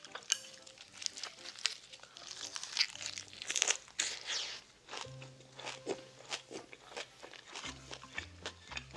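Close-miked chewing: repeated crunchy bites of a ssam wrap of pickled radish, leafy greens and scallop, with faint background music underneath.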